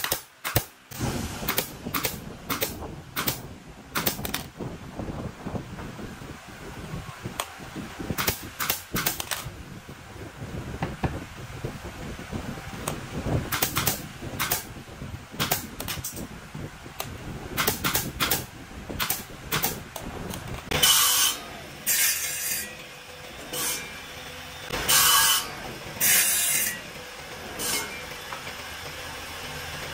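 Handheld drill driving screws into wooden bed-frame panels: short runs of the drill among sharp clicks and knocks as the boards are handled. From about two-thirds of the way in, the drill runs are louder and come every second or so.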